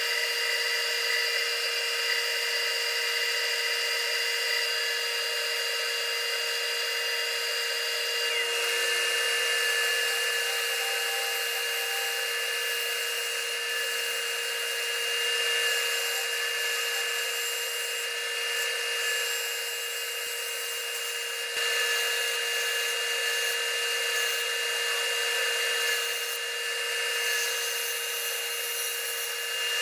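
Wood lathe running steadily with a constant motor whine and a continuous hiss of tool or abrasive on the spinning bowl.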